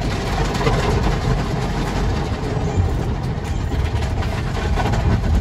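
Tunnel car-wash brushes scrubbing over the windshield and body, heard from inside the car as a loud, steady low rumble with a wash of swishing noise.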